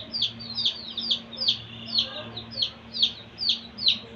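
Young chicks peeping repeatedly, about two high calls a second, each falling in pitch.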